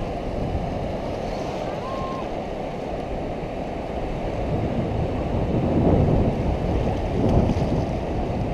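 Strong wind buffeting the microphone over surf washing in the shallows. About two seconds in, the metal detector gives one short, steady high beep.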